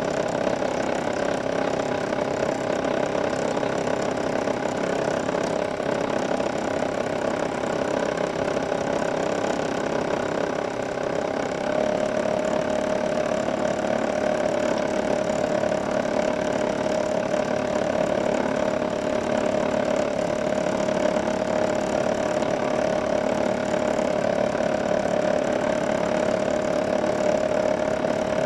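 Precision Matthews PM-25MV benchtop milling machine running steadily while a fly cutter surfaces a metal workpiece, with a steady whine that grows clearer about twelve seconds in.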